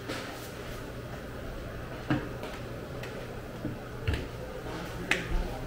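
A handful of sharp clicks and knocks at irregular intervals over a steady low hum of market background noise.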